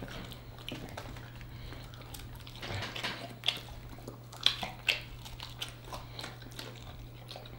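Close-miked eating of sauced chicken wings: quiet chewing and biting as meat is stripped off the bones, with a few sharp wet clicks a little after three seconds in and twice around four and a half to five seconds in.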